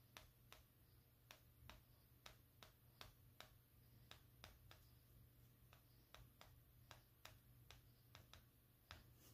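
Faint, quick taps of an oil pastel stick dabbed onto paper, two or three a second at an uneven pace, as small dots and short strokes are laid down.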